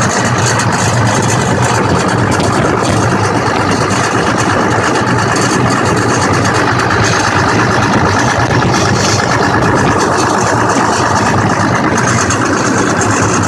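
Engine running steadily at idle, heard close up in its engine compartment.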